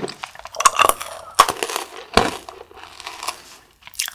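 Close-up crunching of a Vidal Blue Ghost gum-filled candy ball between the teeth: several sharp cracks with lighter crackling in between, the loudest about one and a half and two seconds in.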